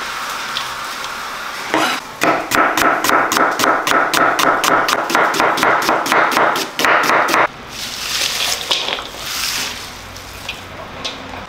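Chef's knife slicing onions on a wooden cutting board: a steady run of chops, about four or five a second, for five seconds or so, stopping suddenly. Then the sliced onion rustles as it is handled over the meat in a steel bowl.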